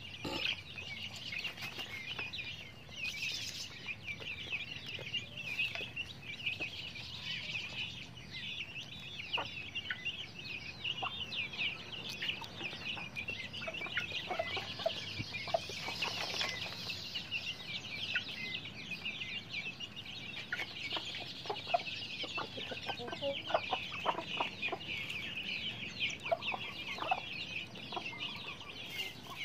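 A flock of young chicks peeping constantly in a dense high chatter, with hens clucking now and then underneath.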